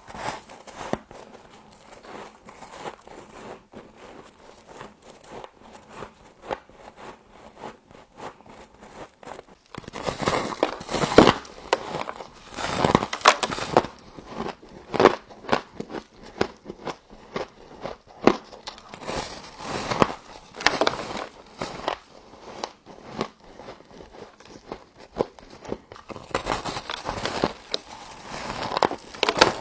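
Close-up crunching and crackling of frost being bitten and chewed, crisp and icy. Quieter, lighter crackles for the first third, then louder, denser bites and crunches.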